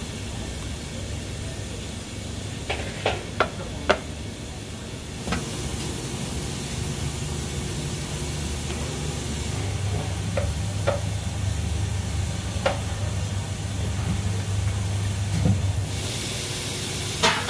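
Steady hum and hiss of kitchen steamer machinery, growing louder about halfway through, with a quick cluster of sharp clicks and taps a few seconds in and a few more single ticks later.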